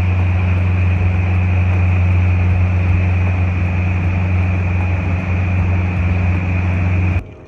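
Outboard motor running steadily at cruising speed on a fishing boat under way, a loud low drone over the rush of water and wind. It stops abruptly near the end.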